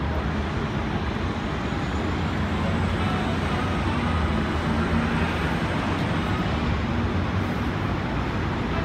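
Baltimore Light Rail articulated train at a station platform, making a steady low rumble and hum.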